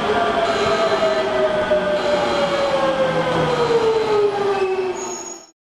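Hankyu 8000 series electric train pulling into an underground station platform as it brakes. Over the running noise, its drive whine falls steadily in pitch as it slows. The sound fades out near the end.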